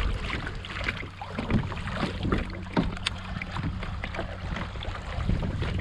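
Kayak paddle strokes, the blades dipping and splashing in the water several times, over wind rumbling on the microphone.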